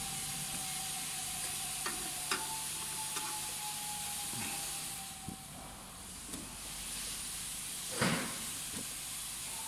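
Steady background hiss with a faint high whine and low hum, and a few light clicks as a jumper wire is worked off the controller switch's terminals. A brief louder handling noise comes near the end.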